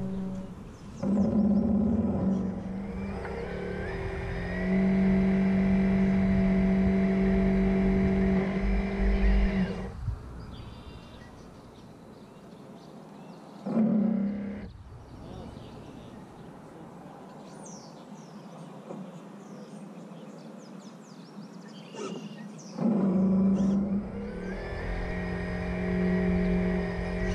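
Drive motor of a radio-controlled model container ship whining in steady stacked tones, with a rising whine as it spins up about a second in. It runs for about nine seconds, drops away to quieter water noise, comes back briefly, then runs again near the end.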